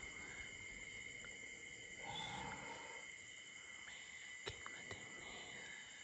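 Faint, steady chirring of crickets, with a brief louder sound about two seconds in and a sharp click about four and a half seconds in.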